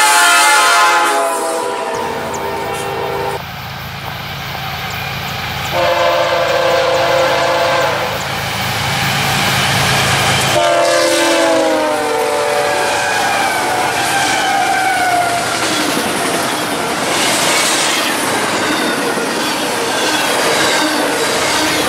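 Diesel locomotive horns blowing in several long blasts, the last one falling in pitch as a BNSF freight led by GE diesels passes close by. Then the steady noise and clatter of double-stack container cars rolling past on the rails.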